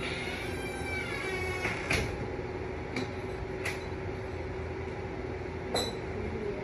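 Wooden blocks of a giant stacking-tower game clacking as they are tapped and pushed: about five sharp knocks, the loudest about two seconds in and near the end. A brief wavering high whine sounds in the first two seconds.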